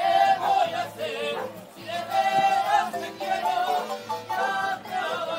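Mariachi music with voices singing long, held notes over the instruments.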